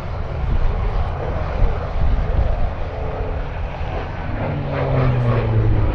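Hawker Fury's Bristol Centaurus XVIII, an 18-cylinder radial engine, running in a flypast; its engine and propeller drone falls in pitch in the last couple of seconds as the aircraft passes.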